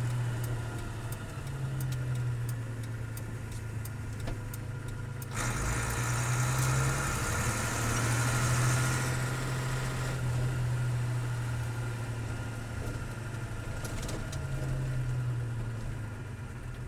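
1984 Bedford truck's diesel engine running steadily, heard from inside the cab. A hiss swells about five seconds in and fades by about nine seconds.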